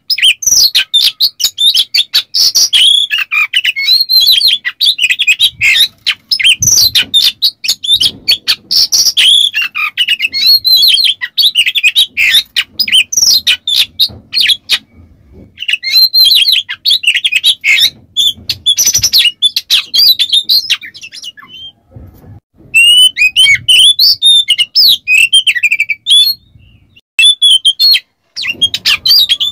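Male Oriental magpie-robin singing a loud, fast, varied song of rapid chirps and whistles mixed with harsh rasping notes, broken by a few short pauses.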